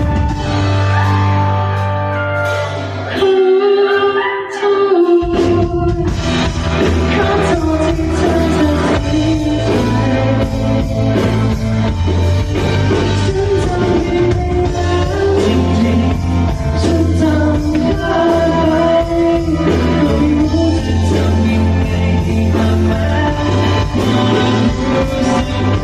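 Live rock band with guitar and a singer playing a song at a sound check; the bass drops out briefly about three seconds in and the full band comes back about two seconds later.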